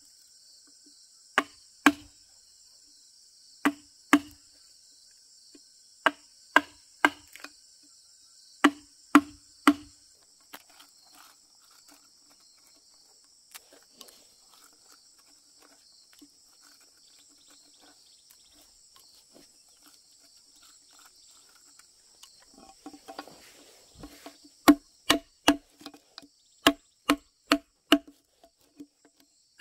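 Chisel driven into a timber beam with sharp blows, cutting a mortise: knocks mostly in pairs and threes, then a pause of about twelve seconds, then a quicker run of about two knocks a second near the end. Insects chirr steadily through the first two-thirds.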